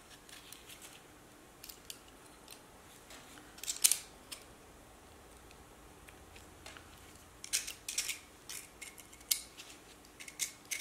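Knife blade slicing and scraping old copper foil off the edge of a stained-glass piece: scattered short, sharp scrapes and clicks, with one loud scrape about four seconds in and a run of them in the last few seconds.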